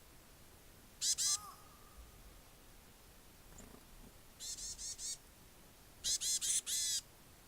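Varied tit giving its harsh threat call, unlike its usual song: two loud rasping notes about a second in, four fainter ones midway, then a louder run of five near the end. It is scolding to drive a Japanese tit off its territory and nest box.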